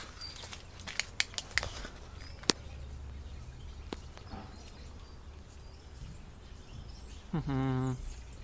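Footsteps and scuffs on a leaf-strewn path, with several sharp clicks in the first two seconds over a steady low outdoor rumble. Near the end comes one short, low-pitched voiced call of under a second that rises slightly as it starts.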